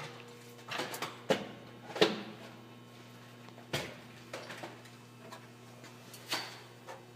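Scattered knocks and clinks of metal parts and tools being handled, about seven in all at irregular intervals, the loudest about two seconds in, over a faint steady hum.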